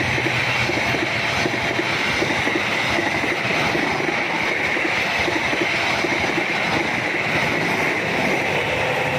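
Train passing at speed over a level crossing: a steady rush of wheels on rails.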